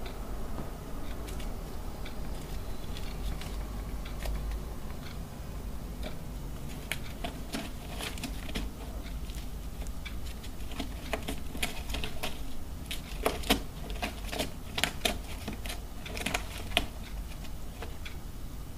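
Gray squirrel gnawing and tearing at a cardboard box: irregular crunching clicks that start about a third of the way in and come thickest and loudest near the end.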